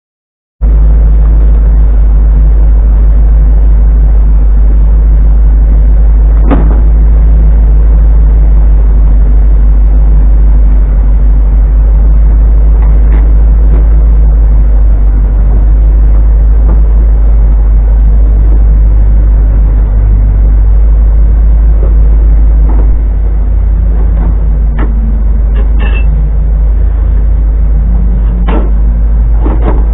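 A loud, steady low rumble, with scattered sharp knocks and clunks as wooden crates are lifted and set down.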